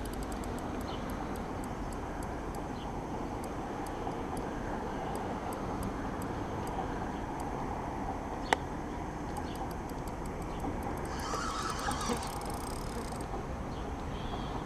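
Spinning reel ticking faintly as line is worked. The ticks come in a quicker run near the end, while the rod is bent hard under a hooked fish. One sharp click comes a little past halfway, over a steady background rumble.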